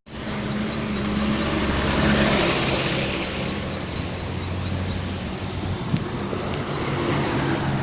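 Large bus passing on the road: engine hum and tyre and road noise that swell about two seconds in, then ease off into steady traffic noise.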